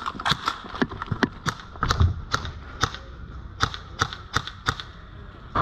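CYMA SR25 airsoft electric rifle firing rapid semi-auto, a sharp shot about three or four times a second, with a short pause in the middle and a dull thump about two seconds in.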